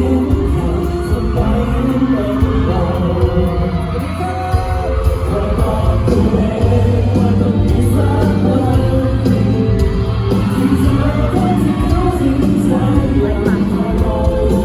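Live amplified pop song with a singer's voice over a band and a steady bass line, heard in a large hall during a concert sound check.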